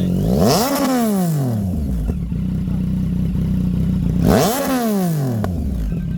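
Yamaha MT-09 three-cylinder engine idling, blipped twice: each time the revs shoot up and fall straight back to idle, with the exhaust note rising and falling.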